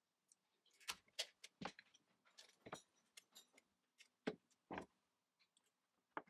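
Brown packing tape and thin cardboard being worked by hand: tape pulled from the roll, cut with a box knife and pressed onto the cardboard pieces, giving a run of sharp crackles and clicks, the loudest about a second in and just after four seconds.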